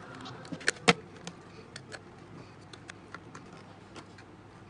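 Folded cereal-box card papercraft pieces handled and pressed together on a table: scattered light clicks and taps, with two sharper knocks about a second in.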